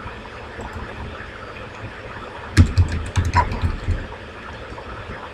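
Computer keyboard typing a single word: a quick run of key clicks lasting about a second and a half, starting about halfway through, over a steady low background hum.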